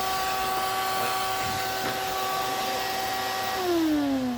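Small portable shop vac running with a steady whine and airflow hiss, then switched off about three and a half seconds in, its motor winding down in a falling whine.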